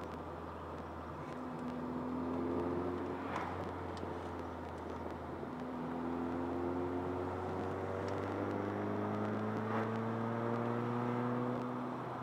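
Opel Corsa B engine and road noise heard inside the moving car's cabin. The engine note climbs briefly about a second in, then rises slowly again through most of the rest as the car accelerates.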